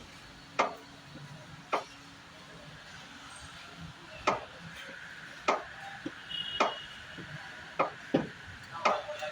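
Clutch fluid dripping from the opened hydraulic line of a Honda Civic FD, about one sharp drip a second, coming closer together near the end.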